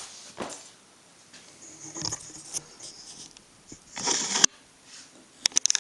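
Handling noises: scattered scrapes and rustles, a longer rustle about four seconds in ending in a sharp click, then a quick run of clicks near the end.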